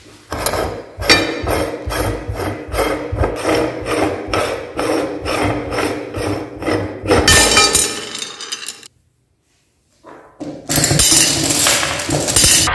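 Hand-cranked metal meat grinder being taken apart: metal scraping and clunking at a steady rhythm of about two strokes a second as the ring nut and cutting plate are worked loose. Then comes a short silence, and near the end the auger scrapes out of the barrel while glass marbles clatter.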